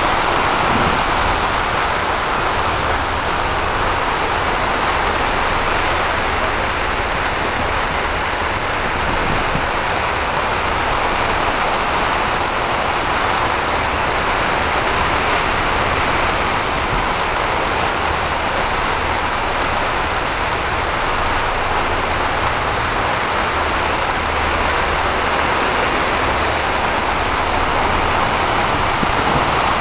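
Ferry's churning wake water rushing steadily along the hull, with the low drone of the ship's engines underneath.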